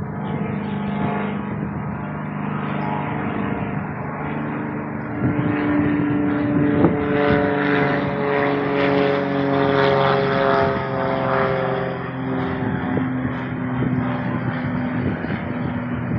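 Goodyear blimp's propeller engines droning overhead. The drone grows louder about a third of the way in, its pitch slowly falls as it passes, and it eases off a little near the end.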